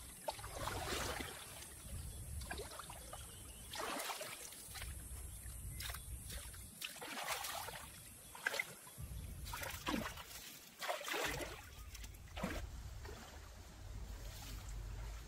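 Shallow muddy stream water splashing and sloshing as hands and legs move through it, in irregular bursts of splashes, over a low rumble.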